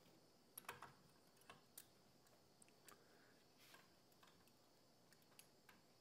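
Faint, irregular light clicks of a small Allen wrench turning in the screw as the rubber butt pad is fastened back onto a Ruger Precision Rifle's buttstock.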